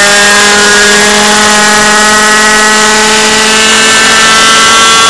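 Thunder Tiger Raptor RC helicopter's .30 glow engine running at high revs in flight, a loud, steady engine whine that sags slightly in pitch, then rises again near the end.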